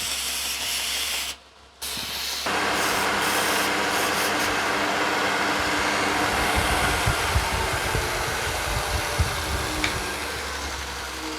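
A workshop power machine running with a steady rushing hiss and a low hum. It cuts out briefly in the first two seconds, starts again, and then runs louder with a few low knocks.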